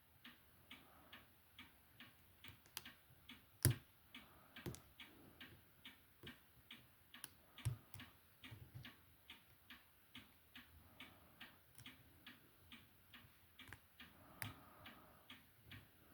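Faint small metallic clicks about twice a second from a lock pick and tension wrench working the pins of an old American padlock under heavy tension, with a few louder clicks and knocks in between.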